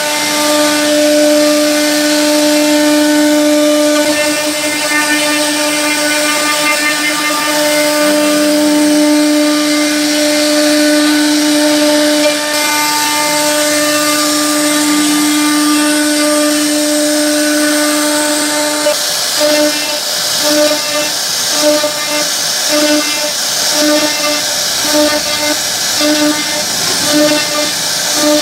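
CNC router spindle running with a steady high whine and a hiss as its bit carves wood. About two-thirds of the way through, the whine turns into an even pulsing, roughly one and a half beats a second.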